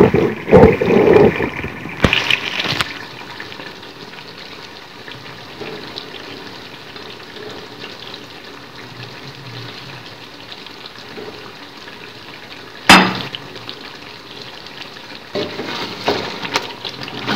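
Chicken curry simmering and bubbling in a metal pot, with whole stuffed green chillies dropped into the thick sauce during the first few seconds. One sharp knock comes about 13 seconds in, and near the end a wooden spoon stirs the curry against the pot.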